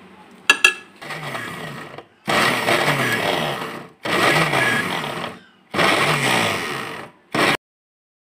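Electric food chopper pulsed in short runs, grinding a cooked chicken and lentil mixture: a click, a softer run, then three louder runs of about a second and a half each with brief stops between them, and a last short burst.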